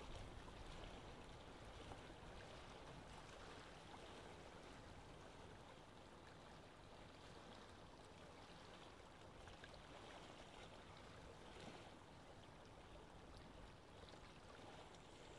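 Faint steady trickling of an aquarium air stream: air bubbles rising through the water and breaking at the surface.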